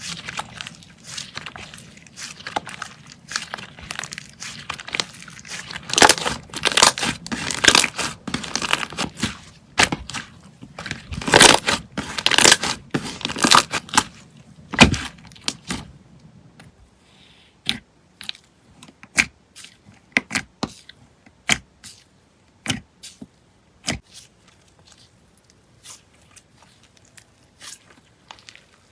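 Slime being pressed and stretched by hand, giving a dense run of crackling and popping. From about halfway through this thins out to single sharp pops a second or so apart.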